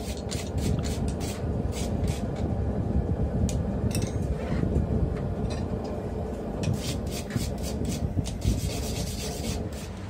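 Worn wire brush scrubbing steel in repeated scraping strokes, with scattered sharp clicks and scrapes.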